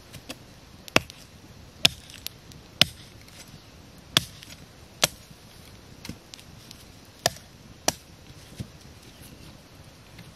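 Machete chopping at a wooden stick: about seven sharp chops, irregularly spaced about a second apart, with a few lighter taps between them.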